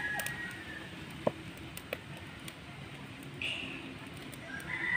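Dry firewood sticks knocking together as they are pushed into a clay cooking stove, two light knocks about a second apart; a chicken calls briefly near the start and again near the end.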